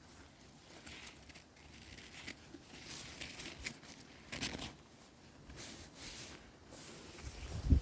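Rustling and crackling of someone moving through forest undergrowth: irregular brushing and snapping of twigs, moss and leaves underfoot.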